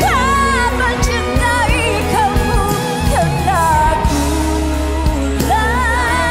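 A woman singing a Malay pop ballad over full band accompaniment, with long held notes, one of them from about four seconds in to the end.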